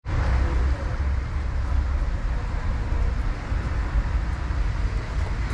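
City street noise: a steady low rumble with a fainter hiss above it.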